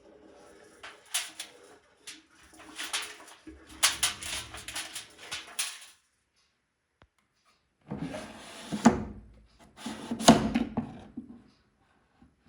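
Irregular knocks, clicks and scraping, rustling noises from something being handled, in three short spells with a quiet gap between the second and third. The loudest knocks come near the end.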